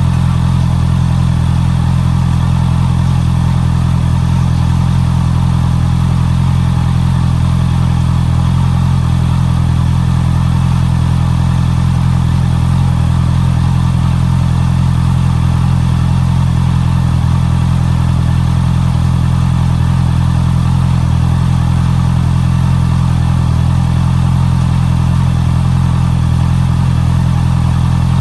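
Honda CB650R's inline-four engine idling steadily through its stock exhaust, with an even, unchanging note.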